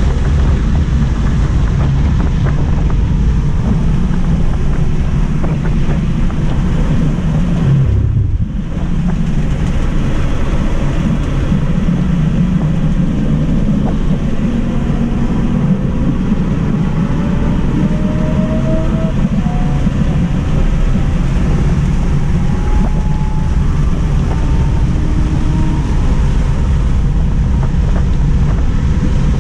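Wind and road noise inside a Tesla Model 3 Mid Range RWD's cabin at track speed, dipping briefly about eight seconds in. A faint rising whine from the electric drive motor comes through as the car accelerates back toward 100 mph.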